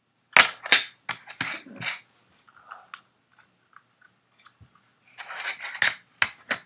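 Rubik's 3x3 Cube being turned by hand: quick scratchy clacks of the plastic layers, a run of about six turns in the first two seconds, then another run near the end.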